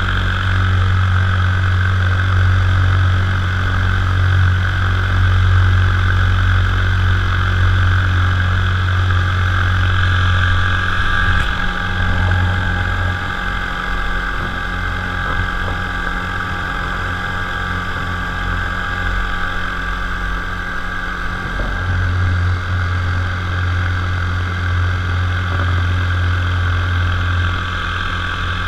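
Top 80 two-stroke paramotor engine and propeller running steadily in flight. Its low drone fades somewhat for about ten seconds midway, then comes back.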